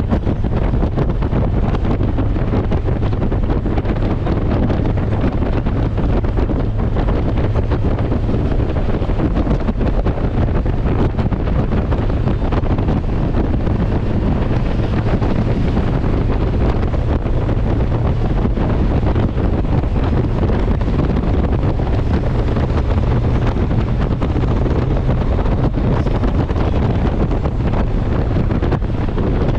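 Steady wind rush on the microphone of a Honda Gold Wing touring motorcycle at motorway speed, over a low, even drone of engine and tyres.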